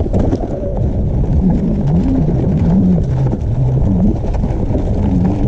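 Low wind rumble buffeting the microphone, with a faint low tone that wavers up and down underneath it.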